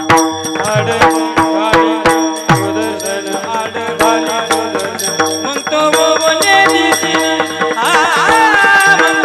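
Warkari kirtan music: steady held tones under repeated drum strokes with a bass that bends downward, and sharp clicks from small hand cymbals. A singing voice with a wavering line comes in about eight seconds in.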